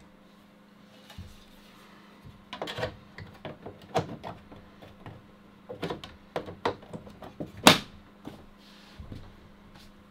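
Hard plastic toy parts being handled and set down: a scattered series of clicks and knocks, the loudest about three-quarters of the way in, over a steady low hum.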